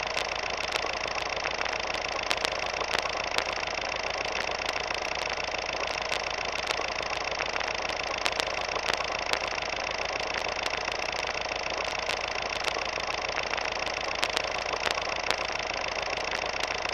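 Film projector sound effect: a steady mechanical whir and clatter with a low hum and frequent scattered clicks.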